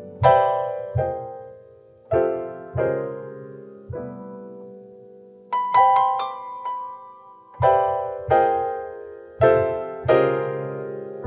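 Solo piano playing slow chords, each struck and left to ring and fade, with a short run of quicker, higher notes about halfway through.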